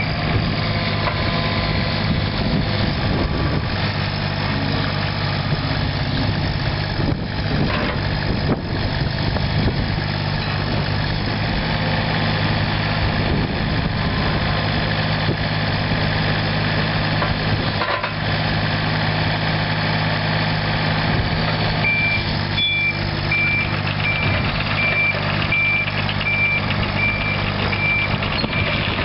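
Yanmar three-cylinder diesel engine of a mini excavator running steadily. Late on, an alarm starts a steady run of short, evenly spaced beeps, like a travel or backup alarm.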